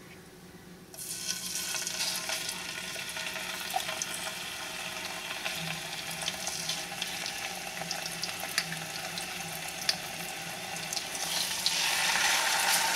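Marinated boneless chicken pieces sizzling as they go one by one into a little hot oil in a frying pan for shallow frying. The sizzle starts about a second in and gets louder near the end as more pieces are added, with a few light clicks of the steel spoon.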